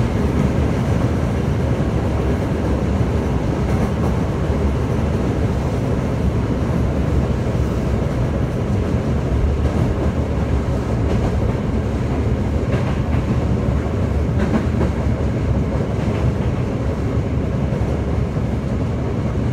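Toei 5300 series subway train running steadily between stations, heard from inside the car: an even, low rumble of wheels on rails with a few faint clicks from the track.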